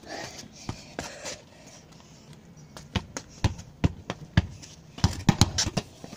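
Football juggled and tapped about on the feet: a string of sharp knocks of the ball off the trainers, with footsteps and shoe scuffs on the paving, coming fast together about five seconds in.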